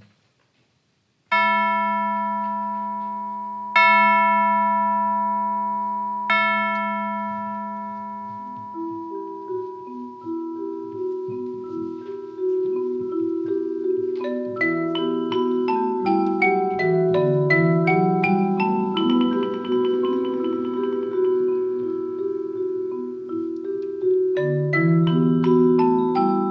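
Percussion ensemble playing mallet instruments: three single struck notes ring out and fade slowly, then a quick repeating pattern on marimba and vibraphone comes in and grows fuller as more players join.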